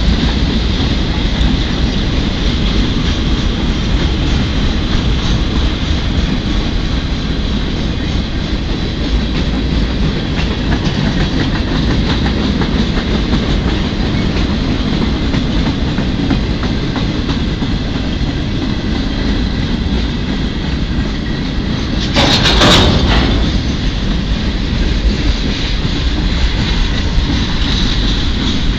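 Freight cars of a manifest train rolling past close by: a steady rumble with the clickety-clack of wheels over the rail joints and a thin, faint squeal. About 22 seconds in, a louder noise lasting about a second stands out above the rumble.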